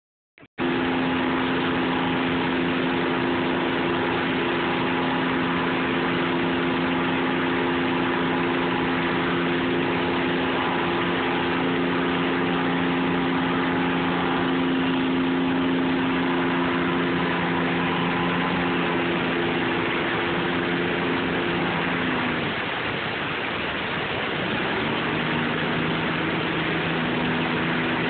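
Steady rush of river water pouring over a low dam spillway, with the even hum of an engine running over it. The engine hum drops away about three-quarters of the way through and returns a few seconds later at a slightly lower pitch.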